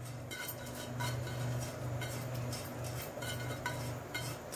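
Raw rice being tipped from a bowl into a pan of boiling water: light scattered clicks and taps of the grains and the bowl over a low hum that swells and fades.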